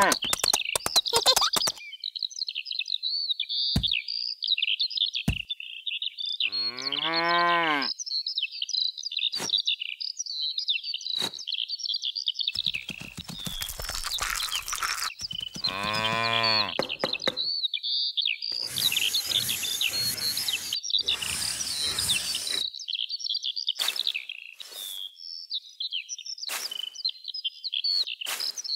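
Birds chirping steadily, with a cow mooing twice, about a quarter of the way in and just past the middle. Several seconds of rustling noise come and go in the second half.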